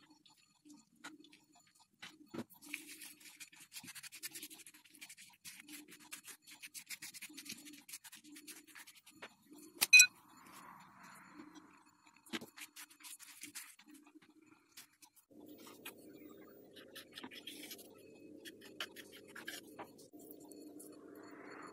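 Dry rustling and crinkling of thin yufka pastry sheets as they are handled and the oil-and-egg mixture is brushed over them, with many small clicks and one sharp click about ten seconds in. A steady low hum joins in about two-thirds of the way through.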